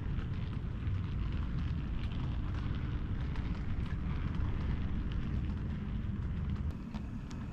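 Model train running along the layout track: a steady low rumble with a light rushing hiss and faint clicks, which eases off about seven seconds in.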